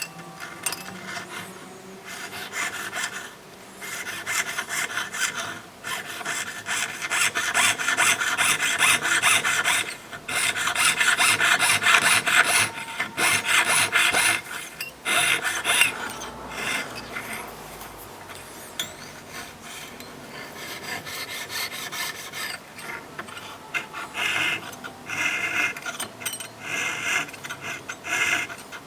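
Jeweller's fretsaw blade rasping back and forth through 18K gold sheet in quick strokes, cutting an openwork pattern. It pauses briefly several times and is quieter for a few seconds after the middle.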